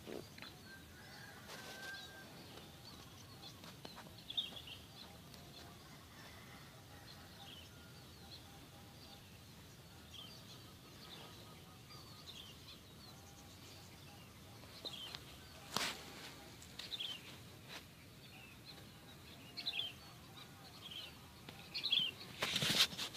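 Quiet outdoor ambience with scattered short, high bird chirps throughout over a faint steady hiss. There are a few brief bumps on the microphone, the loudest near the end.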